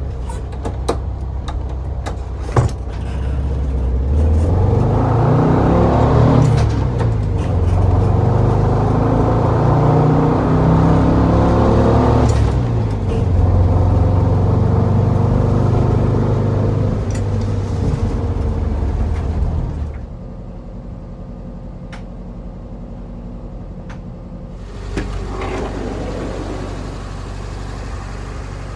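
A 1971 Volkswagen bus's air-cooled flat-four engine heard from inside the cabin while driving. It rises in pitch as the van accelerates, dips at a gear change about twelve seconds in and climbs again. At about twenty seconds it drops to a quieter steady running.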